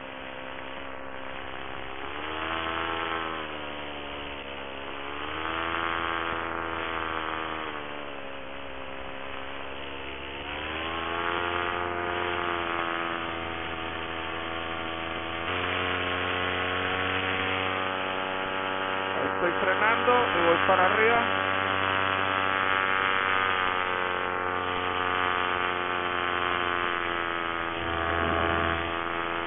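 Paramotor engine and propeller running in flight, a steady buzzing drone whose pitch rises and falls several times as the throttle is worked.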